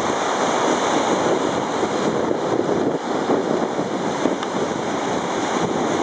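Rough sea surging and breaking against a stone sea wall, a steady rush of surf with no let-up, with wind buffeting the microphone.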